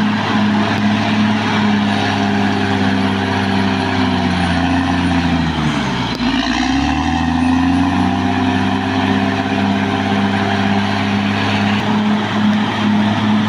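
Caterpillar D6R XL bulldozer's diesel engine running hard over the clatter of its machinery. About six seconds in, the engine speed drops sharply and then climbs back within about two seconds.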